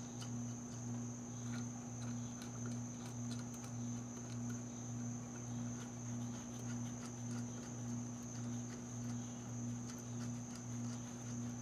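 Faint light clicks and taps of small metal valvetrain parts being handled on a cylinder head, over a steady low hum and a faint high whine that pulse gently about once a second.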